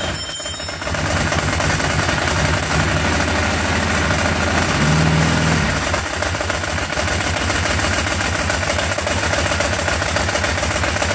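Ducati 749S's 90-degree V-twin engine running at idle, now firing on both cylinders with the fuel pump reconnected after being flooded; it briefly picks up about five seconds in.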